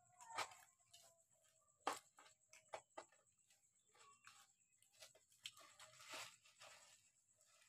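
Cats eating dry kibble from a steel bowl: faint, irregular crunching and clicking as they chew and nose the pellets.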